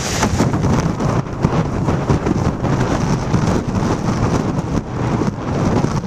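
Strong wind buffeting the camcorder's microphone through its plastic-wrap covering, a loud, uneven rumble over heavy surf breaking on rocks.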